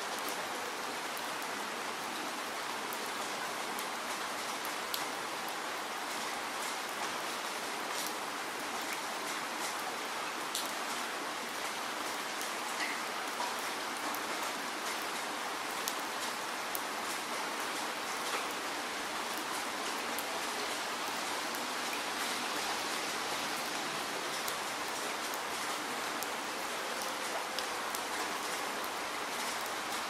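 Steady rain falling: an even hiss with many sharp individual drop impacts scattered through it.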